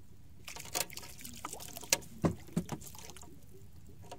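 Water splashing and trickling at the side of a small outrigger fishing boat, with a few sharp knocks and clicks in the middle, as a handline is worked and hauled in over the gunwale.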